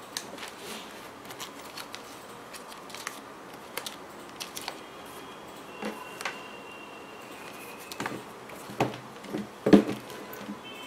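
Handling noise from a knit sneaker being turned over and set back down on its cardboard shoebox: scattered light taps and rubs, with a louder thump near the end.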